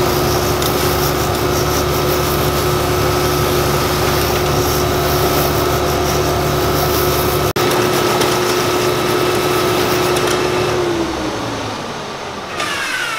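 Electric shoe finishing machine running with a steady motor hum and a grinding hiss as a leather sole edge is sanded on its wheel. About eleven seconds in, the machine winds down, its pitch falling as it slows.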